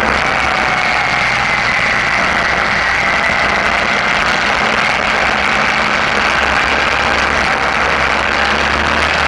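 Suzuki V-Strom adventure motorcycle riding steadily on a gravel road: engine running at an even pace under a constant rush of wind and tyre noise.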